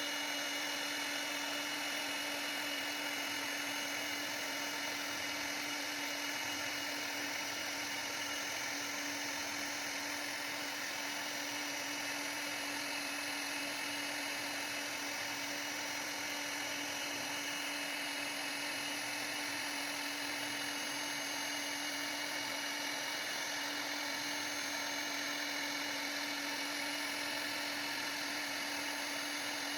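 CNC router spindle running with a steady high-pitched whine and an even hum, with no change in pitch or level.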